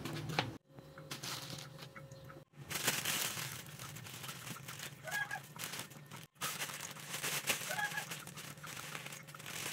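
Thin plastic bags crinkling and rustling as hands open them and handle the shallots and garlic inside, over a steady low hum. A hen clucks in the background twice, about five and eight seconds in.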